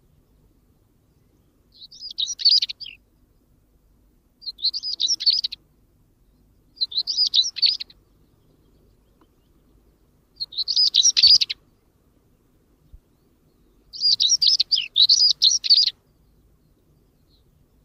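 European stonechat (male) singing: five short, high, scratchy warbled phrases separated by pauses of a couple of seconds, the last phrase about twice as long as the others.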